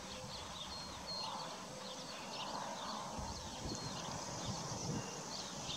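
Horses grazing close by: short crunching and tearing sounds of grass being cropped and chewed, at irregular intervals. Small birds chirp in the background throughout.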